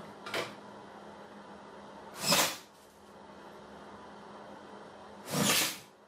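A small click, then two short, loud rasping bursts about three seconds apart, from work on a metal ball-bearing drawer slide being fitted inside a wooden kitchen cabinet base. A steady low hum runs underneath.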